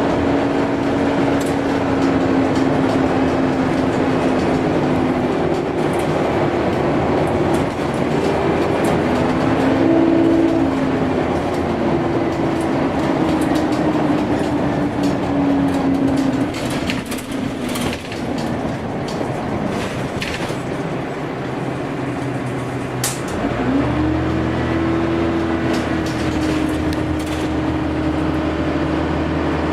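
Dennis Dart SLF single-decker bus heard from inside while driving: a steady engine and drivetrain hum with a slight whine, the 'hoover' sound. The pitch sinks slowly as the bus eases off, then rises again about three-quarters of the way through as it pulls away, with scattered rattles and clicks.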